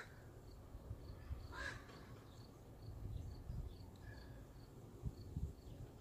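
Faint, evenly spaced high chirps, about two or three a second, typical of a cricket. One short bird call comes about one and a half seconds in, over a low rumble.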